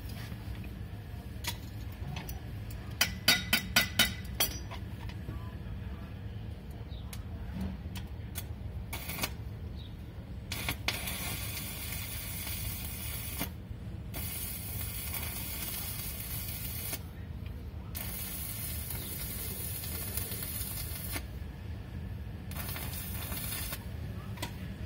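Repair work on a dough mixer's steel hook: about six quick ringing metal taps a few seconds in, then repeated spells of steady hissing, each one to three seconds long, over a steady low hum.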